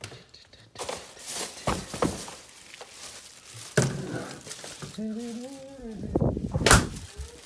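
Handling noise as things in a cluttered room are moved and picked up: irregular knocks, thumps and rustling, loudest in a sharp knock near the end. A short pitched call, rising then falling, sounds about five seconds in.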